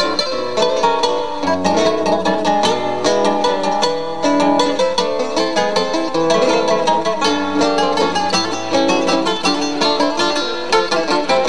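A trio of acoustic guitars playing a waltz: a quick plucked melody over bass notes, continuous.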